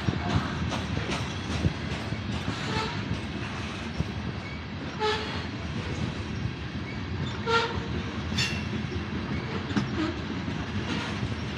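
CSX freight train of covered hopper cars rolling past at close range: a steady rumble of steel wheels on rail, broken by frequent sharp clicks and clanks at the rail joints. A couple of the clanks, about five and seven and a half seconds in, carry a brief metallic ring.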